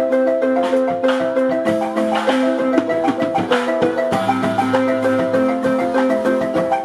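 A marimba ensemble playing live, several marimbas struck with mallets in fast, overlapping note patterns. Deeper low notes come in about four seconds in.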